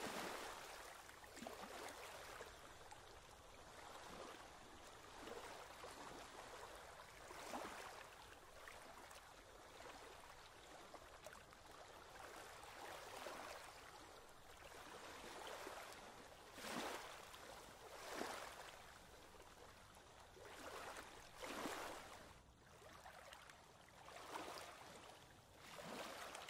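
Faint water flowing and splashing in a continuous wash, with irregular louder surges every few seconds.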